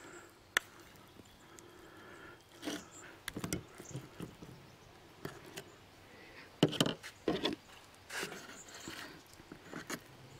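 A metal spoon scraping and tapping against a pot as thick custard filling is scooped out into a pastry-lined tray, then spread with a knife: scattered clicks, knocks and short scrapes, busiest in the middle and later part.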